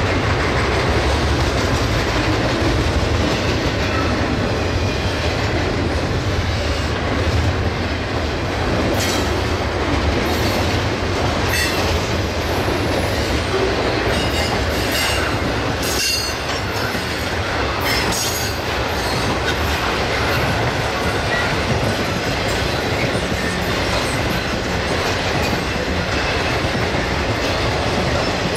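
Intermodal freight train of double-stack container and trailer cars rolling steadily past, wheels clicking over the rail joints. Several brief high squeals come from the wheels in the middle stretch.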